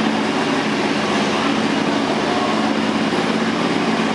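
Riding lawn mower's small engine running steadily under load, a constant hum with a noisy edge.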